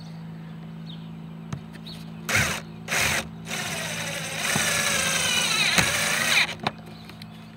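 Cordless drill-driver screwing a cable entry housing down onto a van's sheet-metal roof: two short trigger pulls, then a longer run of about two seconds with the motor's pitch sweeping up and down as the screw is driven home hard.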